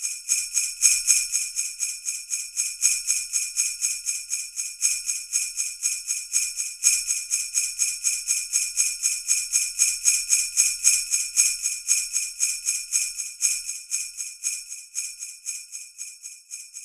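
Sleigh bells shaken in a steady, quick, even rhythm, several shakes a second, growing a little quieter near the end and then stopping.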